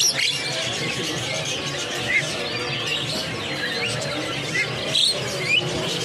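Many caged birds chirping and squawking at once, short rising and falling calls layered over a steady background noise.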